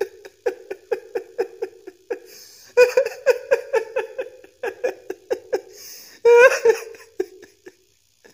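A man laughing in rapid, high-pitched 'ha-ha' pulses, about five a second, in three runs with short pauses between.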